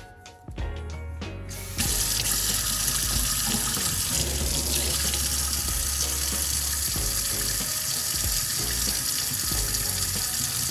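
Tap water running into a sink, switched on about two seconds in and running steadily, with water splashing over fingers rinsing a small metal button.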